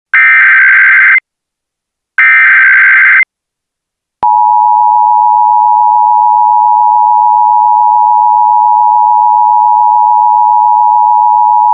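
Emergency Alert System tones: two one-second bursts of SAME header data a second apart, then the steady two-tone EAS attention signal starting about four seconds in and held for about eight seconds.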